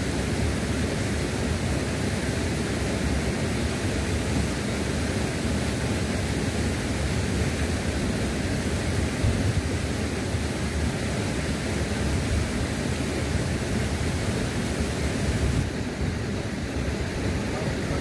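Steady rushing of river water flowing over rocks at a waterfall, a constant full hiss with a low rumble; the higher hiss thins slightly near the end.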